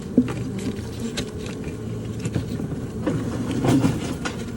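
Honey bees buzzing around an opened colony, with scattered clicks and knocks from comb and frames being handled.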